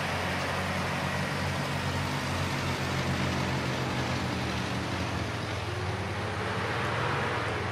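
Heavy haulage truck engine running steadily, a low drone with tyre and road noise over it as the loaded low-loader rolls past.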